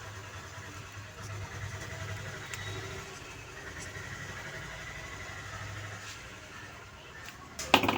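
Steady low mechanical hum with a faint high whine over it, and a few sharp clicks near the end.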